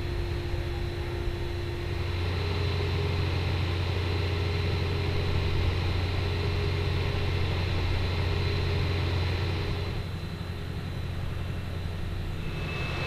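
Fire engine running steadily, a low drone with a thin steady whine above it, dropping slightly in level about ten seconds in.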